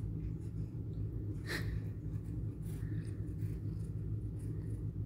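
Faint rustling and scuffing of a cat wrestling with a person's hand on a bedspread, over a steady low room hum, with one brief louder rustle about a second and a half in.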